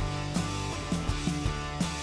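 Live rock band playing: guitars over a steady drum beat.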